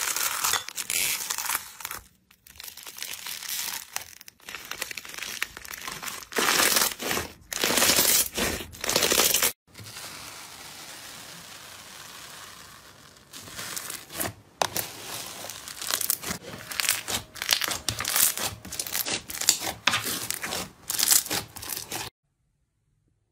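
Crunchy foam-bead slime being poked, pressed and squished by hand, crackling and crinkling in bursts. There is a few seconds of steady soft hiss in the middle, and the sound cuts off abruptly near the end.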